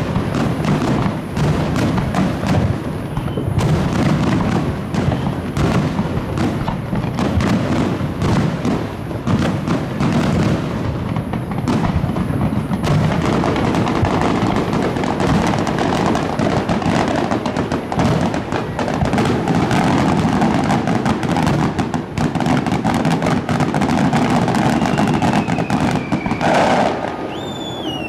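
Fireworks grand finale: a dense, continuous barrage of aerial shell bursts, one overlapping the next with no gaps. The barrage dies away near the end.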